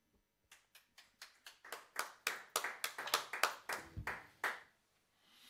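Sparse hand clapping from a small group of listeners, starting faint about half a second in, growing louder, and stopping about a second before the end.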